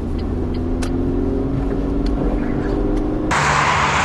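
Low, steady rumble of a car on the move. A little over three seconds in, it switches suddenly to the loud, even hiss of cars driving past on a highway.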